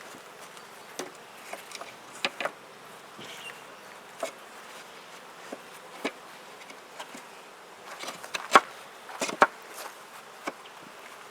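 Honeybees buzzing around an open top bar hive, with scattered sharp knocks and clicks from the hive being worked, two louder knocks near the end.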